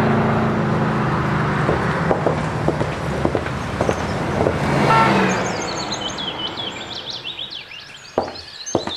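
Car traffic noise that fades gradually. Birds begin chirping about halfway through, and a few sharp taps come near the end.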